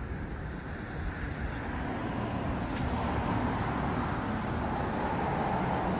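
Outdoor traffic noise with wind rumbling on the microphone: a steady low rumble, and a vehicle hiss that swells louder from about halfway through.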